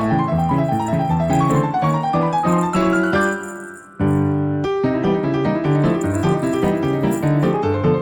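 Background piano music with quick, busy notes; about three seconds in a held chord fades away, and the music starts up again abruptly a second later.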